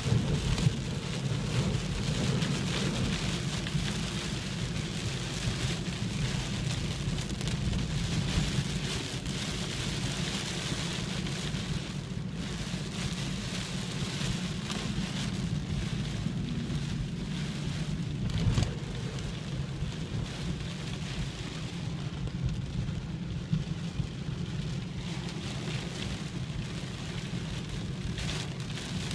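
Steady outdoor noise of a thunderstorm building: an even hiss with a constant low rumble underneath.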